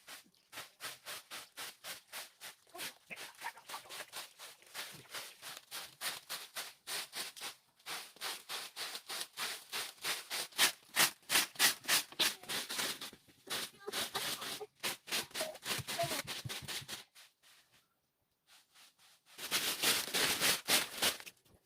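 Quick, regular scraping or striking strokes, about two to three a second, that stop briefly several times and pause for a couple of seconds near the end before a last loud run.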